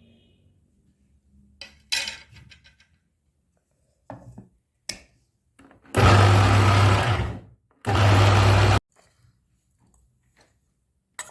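Electric mixer grinder run in two short pulses, about a second and a half and then about a second, grinding a dry herb, nut and spice mix. A few knocks and clinks of the jar come before the first pulse.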